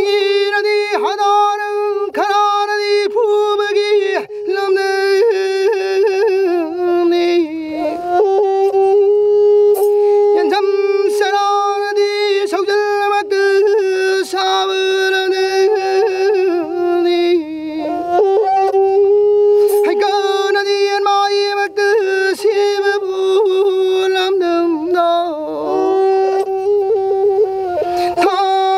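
Pena, the Manipuri bowed fiddle with a coconut-shell resonator, playing a wavering, sliding melody over a steady held drone note.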